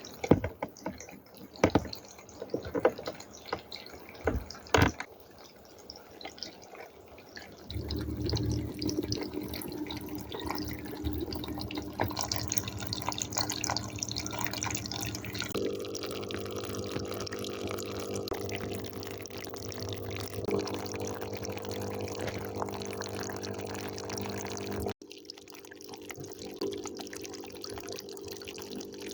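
Water dripping in scattered drops, then from about eight seconds in a steady flow of running water with a low steady hum under it. It breaks off abruptly near the end and carries on more quietly.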